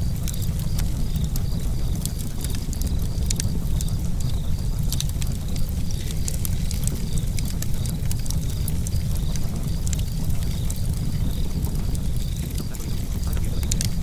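Fire crackling: a steady low rumble with frequent sharp pops and snaps scattered through it.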